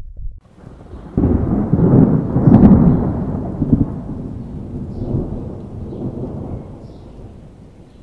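A peal of thunder: a rumble that breaks in about a second in, is loudest with sharp cracks around two and a half seconds, then rolls on and slowly fades.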